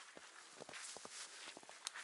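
Conifer boughs rustling and crackling as they are pressed and shifted by hand, with an irregular run of small twig snaps and brushing swishes.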